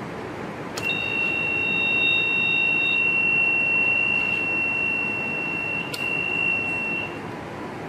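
Minn Kota Talon deployment notification alarm sounding one steady high-pitched tone for about six seconds after the ignition key clicks on, warning that the anchors are still deployed. A second, higher tone sounds with it for the first two seconds.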